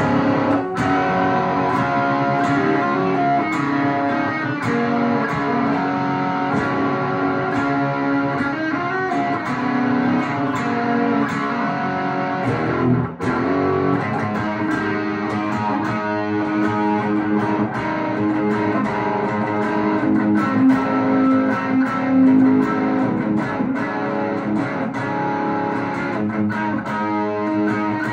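Electric guitar played through a Matchless Clubman amp head into a Matchless 4x10 cabinet with a Landgraff MO'D overdrive pedal, a continuous run of chords and single-note lines with a brief break about halfway through.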